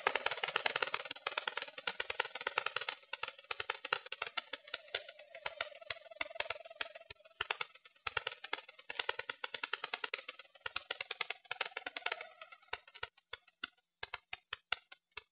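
Rapid, irregular clicking with a faint steady whine that stops about twelve seconds in, after which the clicks grow sparser. It is picked up by a cheap keychain camera riding inside an electric RC glider in flight.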